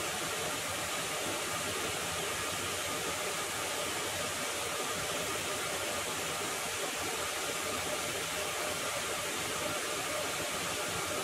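The two large cooling fans of a battery-powered DIY ice-cooler air conditioner running, a steady airy hiss with a faint hum.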